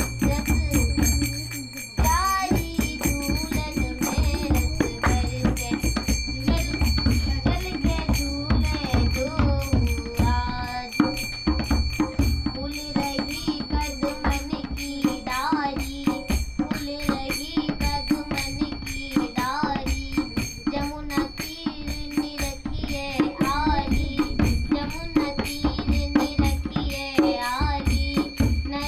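A girl singing a folk song while beating a dholak with her hands, steady drum strokes under her voice.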